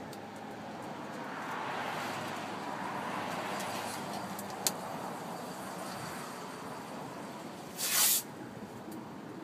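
Passing road traffic makes a steady rushing noise that swells and fades. Near the middle there is a sharp click, and about eight seconds in comes a short, loud rip of tape being pulled off the roll as the graphic is taped into place.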